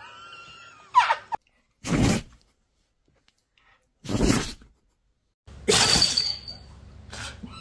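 Dog sneezing repeatedly: about five short, sharp sneezes with dead-silent gaps between them.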